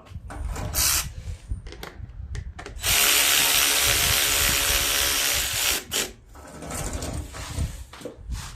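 Cordless power driver running steadily for about three seconds and then stopping, driving a bolt home on the small engine, with a few clicks and knocks of tool handling before and after.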